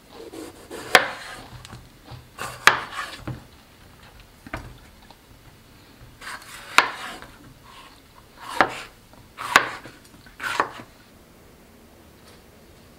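Kitchen knife slicing a yellow bell pepper on a cutting board: a series of cuts, each ending in a sharp knock of the blade on the board, about eight at irregular intervals a second or so apart, stopping about eleven seconds in.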